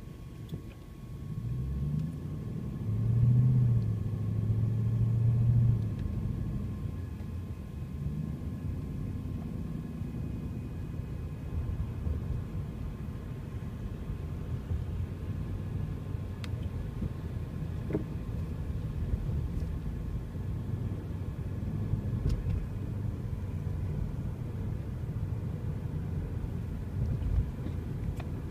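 Car's engine and tyre rumble heard from inside the cabin as it pulls away from a stop and speeds up, loudest a few seconds in. It then settles into a steady low road rumble while cruising.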